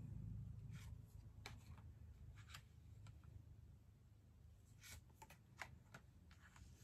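Faint, scattered rustles and light snaps of tarot cards being handled and laid down, about a dozen short sounds over a low steady room hum.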